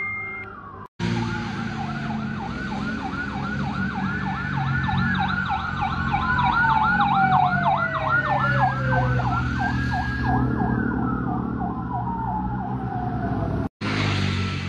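Several fire-engine sirens sounding at once over the engine rumble of the passing trucks: one fast yelp siren warbling about three times a second, with others slowly wailing up and down beneath it. The sound breaks off for a moment about a second in and again near the end.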